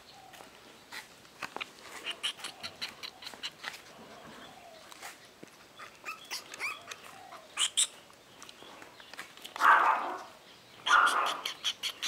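Pomeranian puppy making small whimpering and squeaking sounds, with a quick run of clicks in the first few seconds and two louder short bursts near the end.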